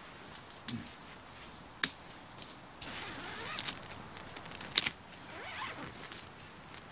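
A tent being pitched by hand: tent fabric rustling and shifting, with two sharp clicks about three seconds apart, the second the louder.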